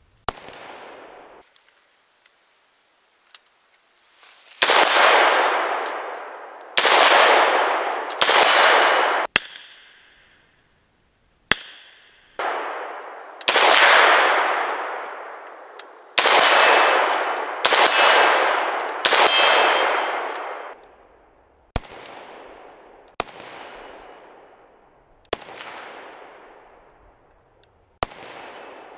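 Arsenal SLR-104FR, a semi-automatic AK-74-pattern rifle in 5.45x39mm, fired about fourteen times, one shot at a time, one to three seconds apart. Each sharp crack trails off in a long ringing decay lasting a second or two.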